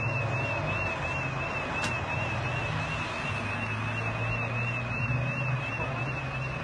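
Street traffic: a car's engine and tyres passing over a steady low engine drone, with a thin, high warbling tone running throughout.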